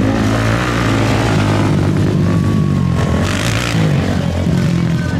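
Several ATV engines running and revving together, their pitches rising and falling, with a brief surge of hiss a little past the middle.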